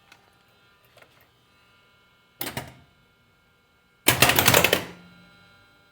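Bally Paragon pinball machine powering up, with a steady electrical hum. About two and a half seconds in there is a short clack, and about four seconds in a loud rapid clatter of coils and mechanisms resetting that lasts under a second and dies away.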